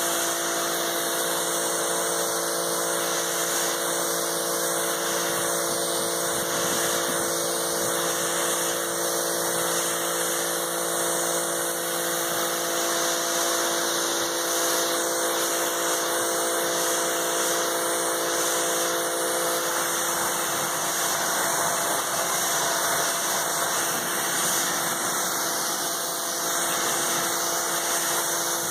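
Karcher 1900 psi electric pressure washer running, its motor and pump giving a steady hum under the hiss of the water jet from the yellow 15-degree nozzle. Some of the hum's tones drop out about two-thirds of the way through.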